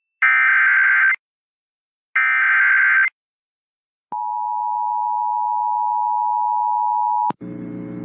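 Emergency Alert System tones relayed over FM radio: two bursts of SAME digital header data, each about a second long and a second apart, then the steady two-tone EAS attention signal (853 and 960 Hz) for about three seconds, which cuts off abruptly. Just after it, a lower, buzzy sound with several tones begins.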